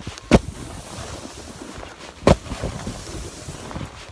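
Snowboard sliding over snow with wind rushing on the action camera's microphone, broken by two sharp thumps about two seconds apart.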